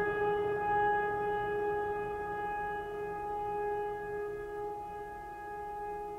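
A long bell-like tone ringing out after a strike, a stack of steady pitches that slowly fades.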